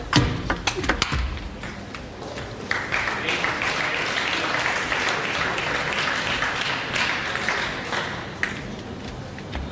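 Table tennis ball clicking off bats and table in a few quick strokes as a rally ends in the first second or so, then spectators applauding for about five seconds before the clapping fades out.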